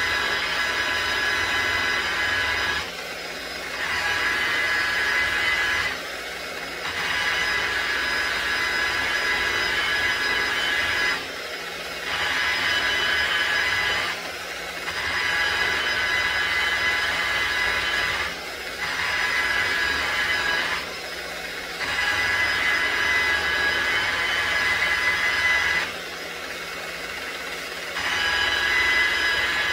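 Motor-driven cotton buffing wheel running against metal while polishing, a steady whining grind that drops back for about a second at a time, seven times.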